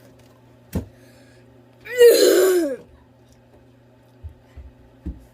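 A boy gags loudly once, under a second long, about two seconds in, while struggling to swallow a raw egg. A short knock comes about a second before.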